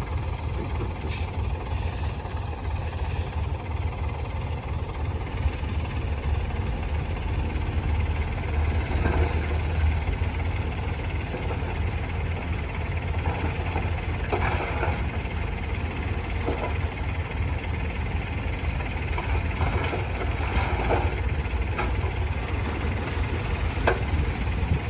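Heavy diesel machinery engine running with a steady low rumble, with scattered metallic clanks and knocks several times.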